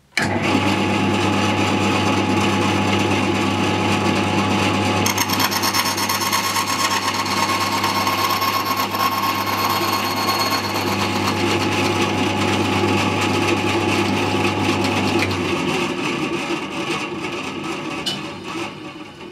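Homemade wooden bandsaw running with a steady motor hum, the blade cutting the slot into a small insert plate from about five seconds in to about eleven. The motor hum stops about fifteen seconds in and the saw winds down.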